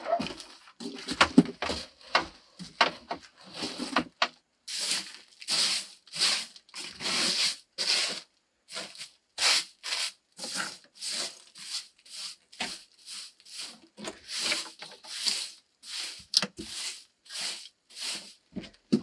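Straw broom sweeping a wooden plank floor in short swishing strokes, about two a second. During the first few seconds, firewood logs are handled and set down with a few wooden knocks.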